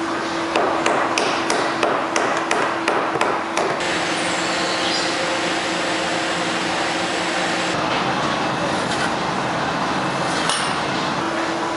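A mallet striking a chisel cutting into timber: sharp, evenly spaced knocks about three a second for the first few seconds. Then a steady workshop noise with a low hum.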